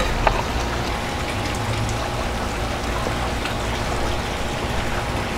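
Steady rushing background noise with a low rumble underneath and a few faint ticks.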